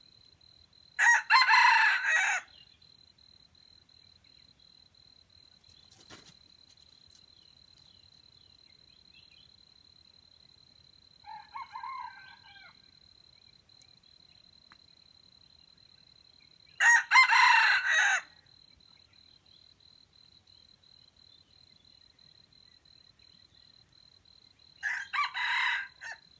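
Jungle fowl (wild chicken) rooster crowing three times, about a second in, past the middle and near the end, with the last crow quieter. A softer, shorter call comes about halfway, and a steady thin high tone runs underneath.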